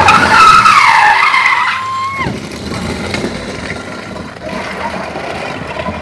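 A car's tyres squealing loudly as it skids round in a spin on tarmac. The wavering squeal breaks off with a falling pitch about two seconds in, leaving quieter engine and tyre noise.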